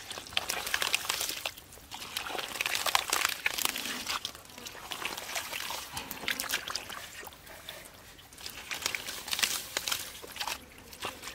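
Wet mud squelching and sloshing as bare hands dig and scoop through it, in irregular bursts that ease off for a moment past the middle.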